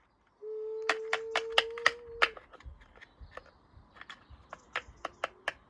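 Washing machine running under abuse: a steady motor whine that stops about two seconds in, with sharp clicks and clatter from loose parts and objects hitting inside, thinning into scattered ticks and knocks.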